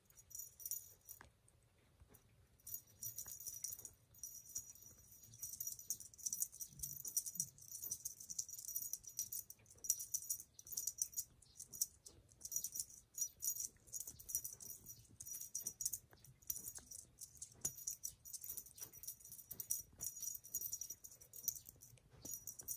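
Light, rapid jingling and rattling in quick, irregular bursts as a fluffy rainbow cat teaser wand is swished and shaken about. It starts a couple of seconds in and keeps on in uneven flurries.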